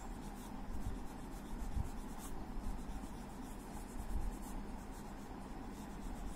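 A short green crayon rubbing back and forth on paper in repeated strokes, shading in colour.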